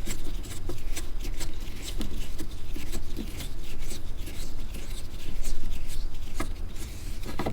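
Faint clicks and scraping of a Phillips screwdriver working a screw out of the dashboard trim, over a steady low hum.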